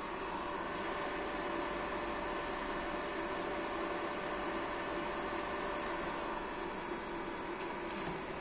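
3D printer's electronics running with a steady hum and hiss under a thin high whine, the strange noise the owner traces to the printer's motherboard. There are two faint clicks near the end.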